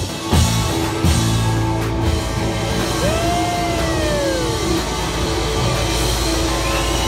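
Live rock band playing: a Les Paul-style electric guitar leads over drums and bass. About three seconds in, a long guitar note bends up and then sinks slowly back down.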